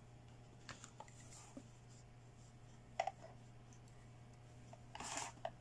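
Faint handling of a doll and small plastic toy accessories such as a toy hair dryer: light clicks and taps, one sharper click about three seconds in, and a short rustle near the end, over a steady low hum.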